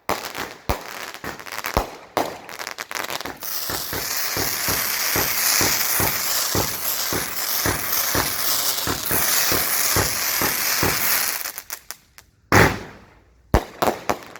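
A 200-gram consumer firework cake firing its tubes in quick succession, one sharp shot after another. From about three seconds in, the shots are joined by a continuous high hiss that lasts some eight seconds. A loud single report comes near the end, then a couple of last shots.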